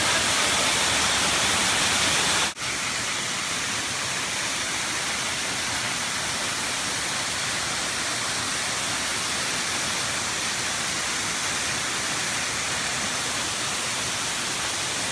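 Waterfall pouring into a pool, a steady, even rushing of falling water. It breaks off for an instant about two and a half seconds in, then carries on slightly quieter.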